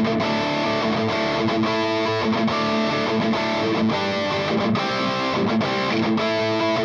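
Overdriven electric guitar, an EVH Stripe Series played through a PRS MT15 valve amp dialed in for an 80s hard-rock tone, playing a riff of notes and chords that change several times a second.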